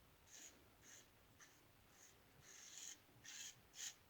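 Faint, short scratchy rubbing strokes, a few scattered at first, then coming faster and more regularly near the end.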